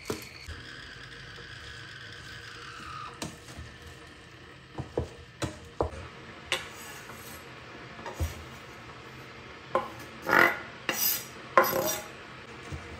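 Kitchen knife scraping chopped dill off a wooden cutting board into a stainless steel pot. Scattered light knocks and taps come first, then a few louder scrapes in the last few seconds.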